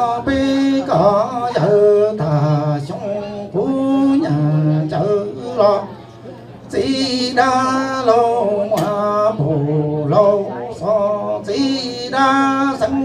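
A man singing in Hmong over a steady held accompaniment. The voice breaks off briefly about six seconds in.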